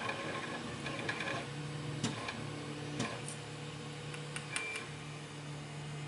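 Light metallic clicks and taps of a small metal tool working pins out of a brass padlock core, over a low hum that comes and goes.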